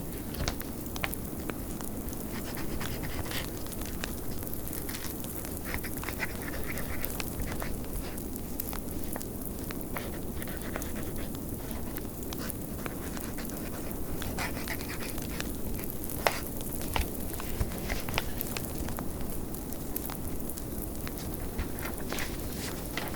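Wood fire crackling with frequent small pops over the steady low rush of blizzard wind.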